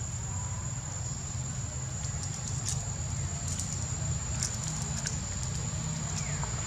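Outdoor background noise: a steady low-pitched noise and a constant thin high whine, with a few scattered small clicks and crackles.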